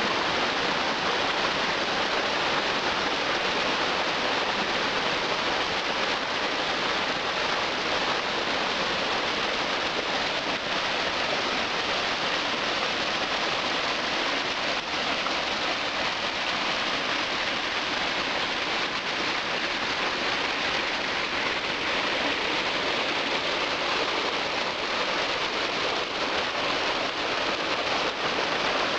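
Rushing water of a mountain stream, a steady even noise with no break.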